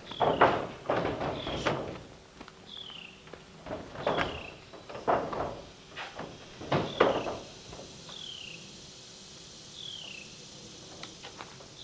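Irregular knocks and thumps of someone moving about and working on metal roof panels, loudest in the first seven seconds. A bird repeats a short falling whistle every second or two throughout.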